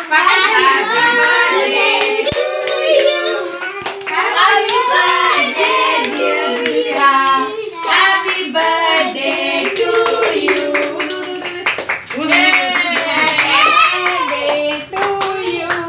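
A small group of children and women singing a birthday song together, with hands clapping along throughout.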